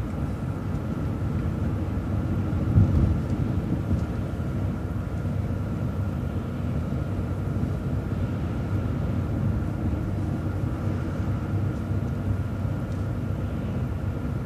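City bus driving along a road: steady low engine and road rumble with a faint steady whine above it, and a single louder bump about three seconds in.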